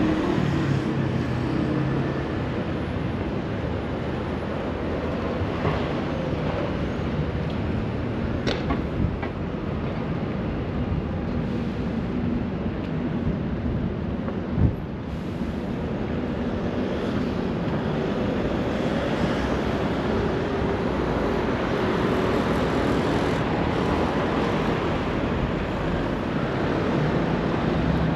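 Road traffic on a busy city street: passing cars and buses make a steady engine and tyre noise. A single sharp knock sounds about halfway through.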